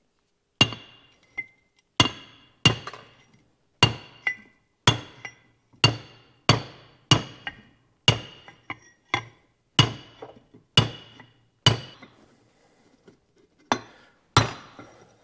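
A hammer striking a steel plate to drive a new oiled grease seal into a Dexter 15k trailer axle hub: a string of sharp metallic strikes, each ringing briefly, about one to two a second, with a short pause near the end before a few more. The blows are seating the seal in its bore.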